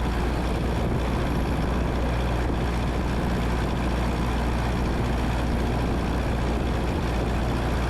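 Steady cabin drone of a Cessna 172N's four-cylinder Lycoming engine and propeller, with rushing airflow, at reduced power on final approach to landing.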